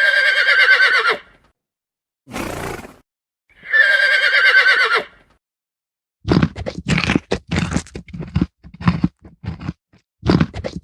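A horse whinnying twice, each a trembling, quavering call of about a second, with a short breathy burst between them. From about six seconds in comes a rapid run of short, rough sounds, about three a second.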